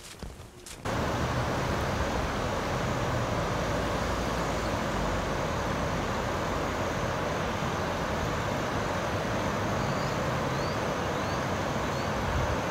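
Steady rushing noise of a flooded river and wind buffeting a phone microphone, starting abruptly about a second in. A few faint, short, high rising chirps sound near the end.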